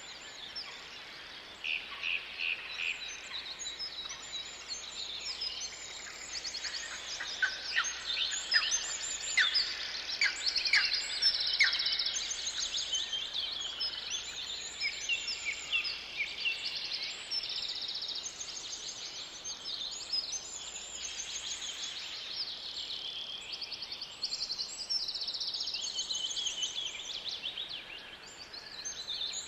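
Several songbirds singing at once: a busy chorus of high chirps and fast trills, with a run of short falling notes in the middle.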